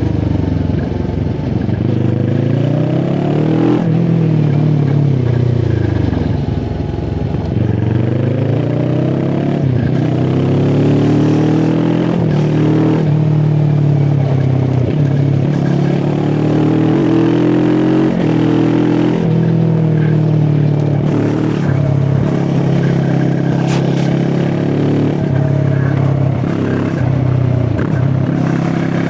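QJ Motor SRT 450 RX motorcycle engine under way, revving up and dropping back again and again as it shifts through the gears, with steadier stretches of cruising between.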